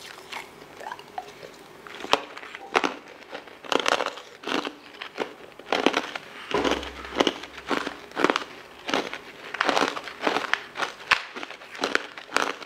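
Sharp crunching and cracking as frozen, frost-covered coloured ice pieces are bitten and chewed, in repeated clusters of cracks.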